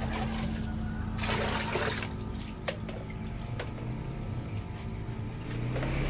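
Water running steadily over a low hum, with two faint clicks in the middle.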